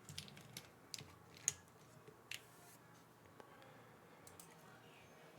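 Faint, scattered plastic clicks and taps from keyboard parts being handled during assembly: a handful in the first two and a half seconds, then near silence.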